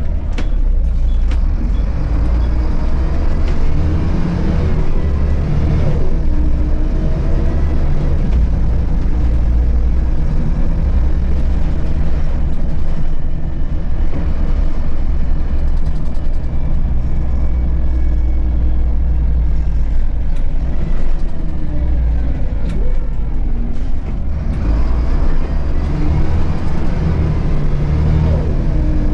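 2002 Volvo B7RLE bus's inline-six diesel engine, heard from the rear of the cabin while driving, a deep steady rumble whose pitch rises and falls several times as the bus speeds up and slows through the gears.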